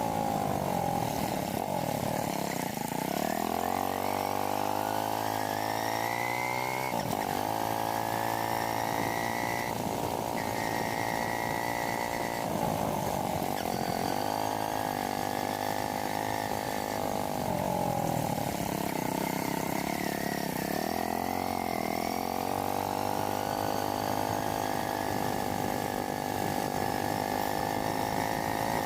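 Motorcycle engine running under way, its pitch dipping and climbing every few seconds as the throttle opens and closes, with a few sudden jumps in pitch.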